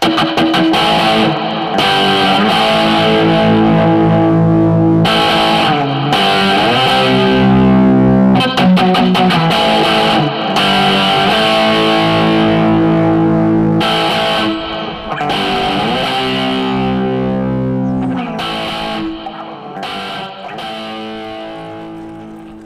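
Distorted electric guitar music: held chords that change every few seconds, fading out near the end.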